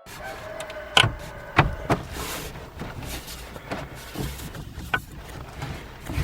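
Hands working on plastic dash trim and fittings: a series of sharp clicks and knocks, the two loudest about one second and a second and a half in, with softer ones after, over a low background hiss.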